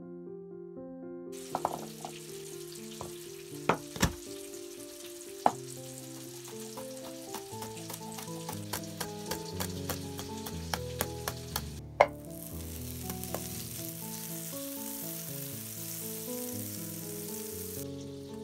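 Chef's knife chopping garlic on a plastic cutting board: scattered taps at first, then quicker chopping, over soft piano music. A loud knock comes about twelve seconds in, followed by a steady hiss for about six seconds.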